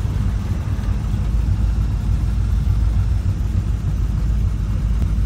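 Car engine running at low speed, a steady low rumble heard from inside the cabin.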